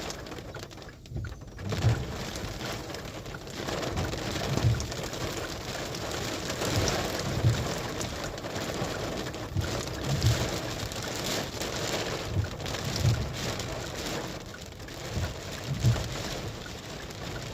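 Heavy rain falling steadily, with a short low thump every one to three seconds.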